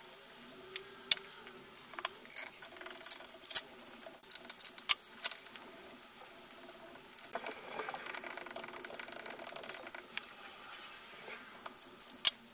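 Sped-up workshop sound of bolts and hand tools clicking and clinking against the aluminium oil pan of an old BMW motorcycle engine as the pan is bolted on: scattered sharp clicks, a stretch of fast rattling in the middle, and one last sharp click near the end.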